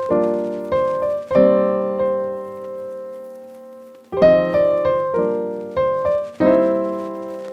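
Background piano music: chords struck and left to ring, with one long chord fading away in the middle before the playing resumes about four seconds in.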